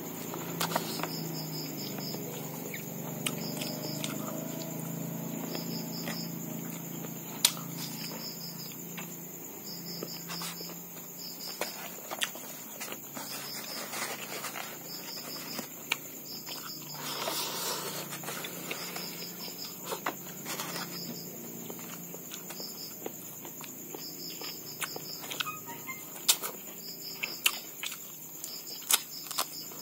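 Close-up hand-eating sounds: chewing, lip smacks and sharp mouth clicks while eating rice and fried chicken, with fingers working food in a styrofoam box. Behind this, insects chirp steadily in short pulsed trills.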